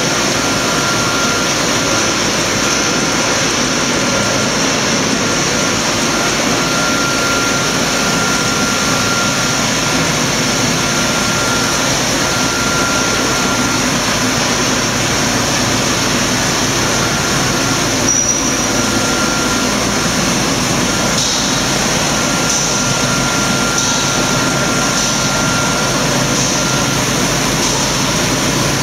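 Single facer corrugator line running: a steady, even machine noise, with a faint high whine that comes and goes.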